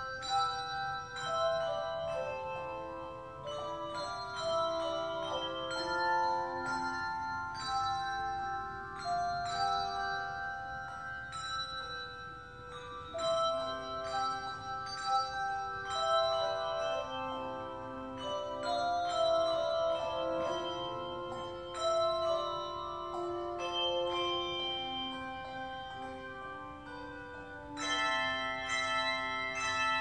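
Handbell choir ringing a tune: many handbells struck in turn, each note ringing on and overlapping the next. Near the end a louder, brighter passage of higher bells comes in.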